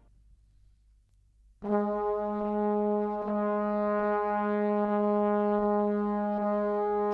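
About a second and a half of near silence, then brass music comes in on one long held note from a patriotic piece laid over the video.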